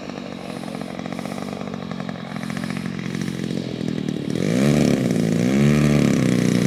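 Engine of a radio-controlled Aeroworks Extra 260 aerobatic model running at low throttle as the plane lands and rolls out on grass, growing louder as it comes closer. Just past four seconds in, the engine revs up and back down twice in quick succession, then settles into a steady louder taxiing note.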